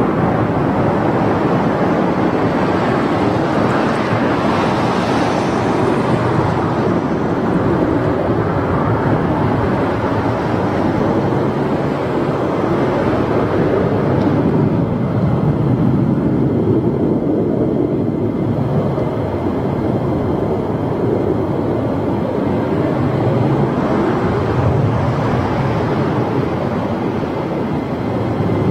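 F-15 Eagle fighter's twin jet engines giving a loud, steady roar as it climbs away after takeoff, the sound swelling and easing slowly.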